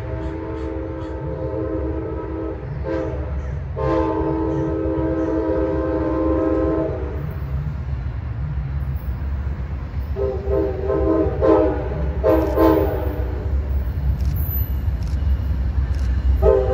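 Amtrak diesel locomotive's multi-note air horn sounding for its approach: two long blasts, shorter blasts about ten seconds in, and another starting near the end, over the low rumble of the approaching train.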